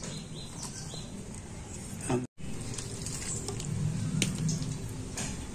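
A spoon scraping and clicking against a steel tiffin box, and thick, wet ridge-gourd mash squishing as it is spooned out onto a plate. The sound cuts out completely for a moment about two seconds in.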